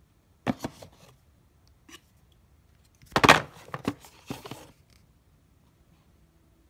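Handling noise from turning a mobile hotspot over in the hand near its cardboard box: a short run of clicks about half a second in, one click near two seconds, then a louder cluster of knocks and clicks from about three seconds to nearly five seconds in.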